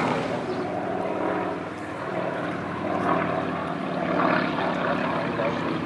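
Radial-engined PZL crop duster flying overhead, its engine and propeller giving a steady drone that swells and fades slightly as the plane banks.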